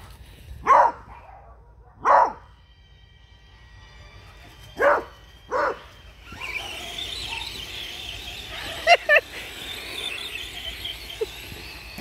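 A beagle barking in single short barks, four spread over the first six seconds, then two quick ones in a row about nine seconds in. From about six seconds on, a steady hiss runs underneath.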